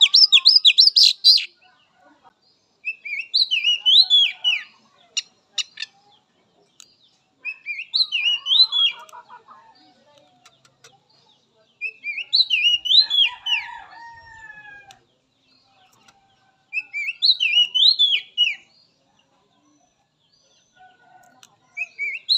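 Oriental magpie-robin (kacer) singing. It opens with a rapid run of high notes, then repeats the same short, high, zigzagging phrase four times, about every four to five seconds. Fainter, lower calls sit under two of the phrases.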